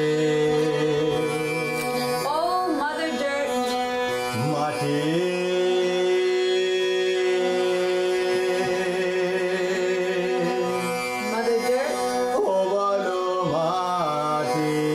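Indian classical string music: a tanpura drone held steady under a bowed, fretted long-necked Indian string instrument of the esraj type. The bowed instrument plays slow sliding phrases, once about two seconds in and again from about eleven seconds.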